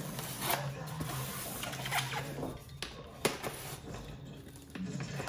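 Knife cutting the tape along the lid seam of a styrofoam shipping box: scraping and rubbing of blade and hands on the foam, with three sharp clicks.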